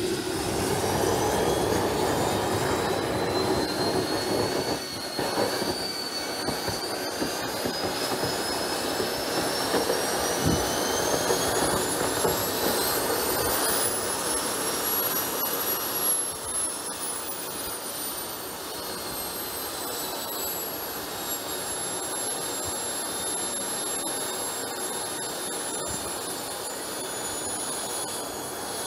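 JetCat P80 SE model jet turbine starting up from a wet start, lighting with a rush of burning kerosene from the tailpipe. Its whine climbs steadily in pitch for about fifteen seconds, eases back slightly, then holds a steady pitch at idle.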